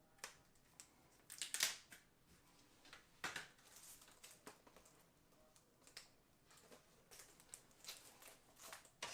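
Faint, scattered rustling, crinkling and scraping from handling peel-and-stick tile sheets, with louder crackling bursts about a second and a half in and again about three seconds in.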